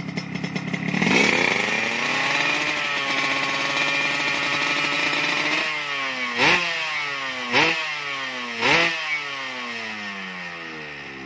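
Race-tuned Yamaha RX-King two-stroke single-cylinder engine revved while the bike stands still: it rises sharply about a second in and is held high for several seconds, then drops and is blipped three times about a second apart, each blip falling back toward idle.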